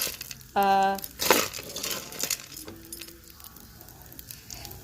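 A metal mixing spoon clinking against a pot while pasta is stirred, with a sharp clink about a second in and fainter ones later. A short, steady pitched tone about half a second in is the loudest sound.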